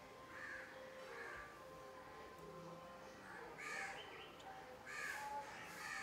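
Crows cawing: a series of harsh caws, a couple of faint ones early on and louder ones repeating in the second half.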